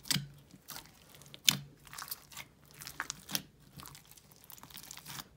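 A large mass of mixed slime, heavy and gritty, being squished and kneaded by hand: irregular sticky crackles and wet pops, with a few louder snaps as air pockets burst.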